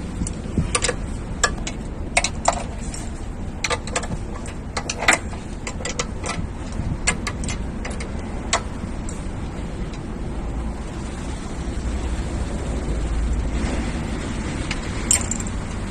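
Irregular metallic clicks and taps of a socket wrench working the clutch pressure-plate bolts on a Mercedes-Benz truck's flywheel, mostly in the first half. A steady low background rumble runs under it and swells a little near the end.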